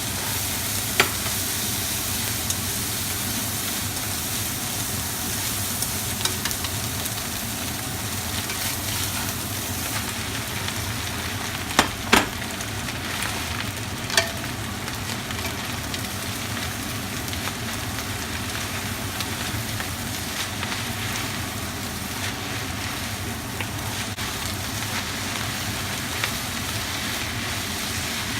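Food sizzling as it is stir-fried in a hot pan, a steady frying hiss, with a few sharp clinks of the utensil against the pan about a second in and a cluster around the middle.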